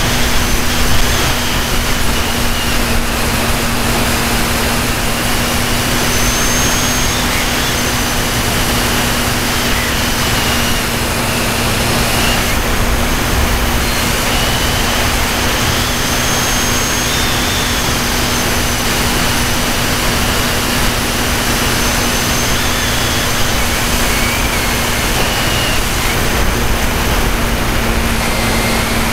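Radio-controlled model airplane's motor and propeller running steadily in flight, heard from a keychain camera on board: a steady low hum and a high whine that wavers slightly in pitch, over constant wind rush.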